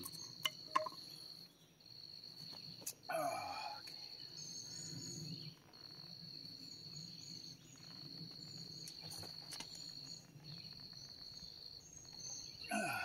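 Insect trilling at one high, steady pitch in stretches of a second or so with short breaks. There are faint knocks and clicks from pipe fittings being handled, and one brief louder sound about three seconds in.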